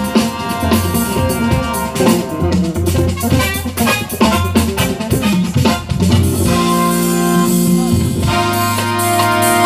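Live jazz band playing, with keyboard and drum kit. A busy passage of struck notes and drum hits gives way about six seconds in to long held chords.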